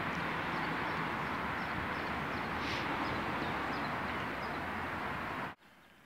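Steady rushing outdoor background noise with faint, short bird chirps above it; the noise drops away abruptly about five and a half seconds in, leaving a much quieter background.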